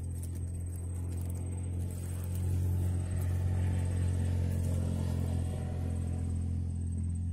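A motor engine's low, steady drone that swells about two and a half seconds in and eases off again near the end.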